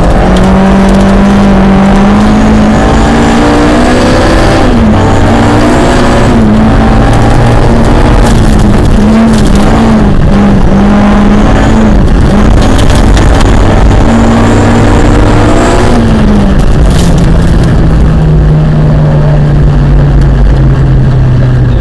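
Cosworth BDA twin-cam four-cylinder engine of a 1975 Ford Escort Mk2 rally car working hard on a gravel stage, heard inside the cabin. Its note rises and falls sharply through the shifts and corners, then settles to a lower, steadier note about 16 s in. Gravel hisses and rattles against the underside of the car now and then.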